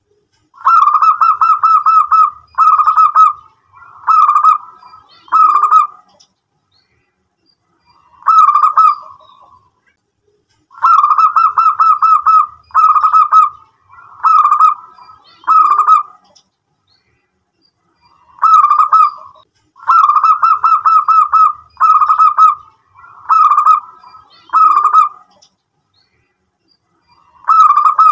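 Zebra dove (perkutut) singing: phrases of rapid staccato cooing notes, each under a second to about a second and a half long, given in runs of four to six with pauses of a few seconds between runs.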